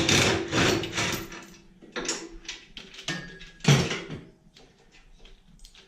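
Metal tools and tractor parts clanking and rattling as bolts are worked loose on a garden tractor's clutch bracket: a cluster of clatters at first, more about two seconds in, and one loud knock near the middle, then a few faint clicks.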